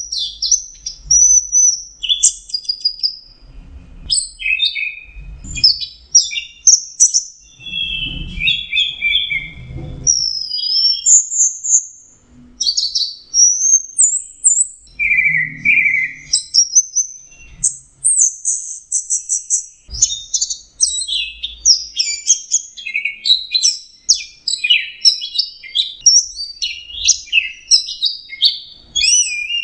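Orange-headed thrush singing a fast, continuous, varied song of high whistled notes, slurs and chattering phrases.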